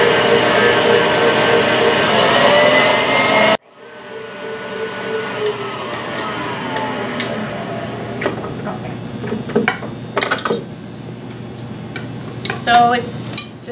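KitchenAid stand mixer running steadily as it mixes icing in its stainless steel bowl, cut off abruptly about three and a half seconds in. After that a quieter falling whine as the mixer spins down, then scattered clicks and metal clanks as the bowl is lowered and lifted off.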